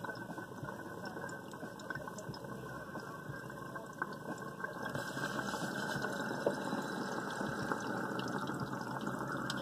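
Water bubbling and gurgling in a small glass dab rig, the Pineapple V2, as someone draws a hit through it. The bubbling is steady and grows louder about halfway through.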